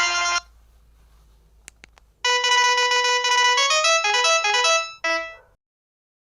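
Samsung SPH-N345 mobile phone ringtones: one synthesized melody cuts off just after the start, two faint clicks follow, then another tone plays a held note and a quick run of notes for about three seconds before stopping.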